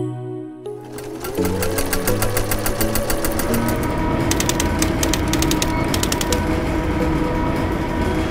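Industrial sewing machine starting up about a second in, its motor rising to speed, then running steadily with a fast stitching rhythm.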